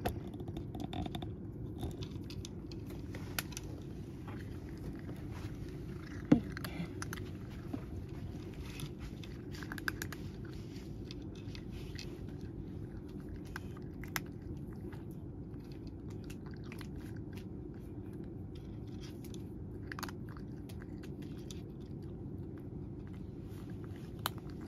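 A cat chewing and crunching dry kibble from a dish, with irregular crisp crunches and one sharper click about six seconds in, over a steady low background hum.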